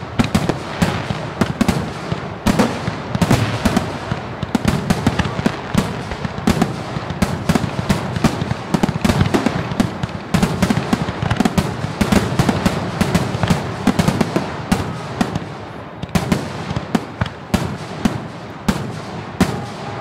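Fireworks going off in a rapid, continuous barrage of bangs and crackles. The barrage thins out over the last few seconds.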